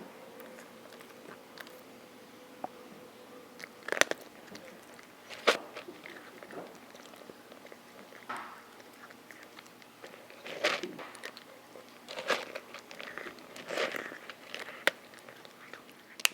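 A cat crunching and chewing dry kibble: irregular sharp crunches, loudest about four and five and a half seconds in, with a denser run of crunching a little after the midpoint.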